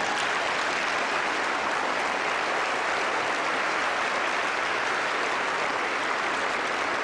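A large church congregation applauding steadily.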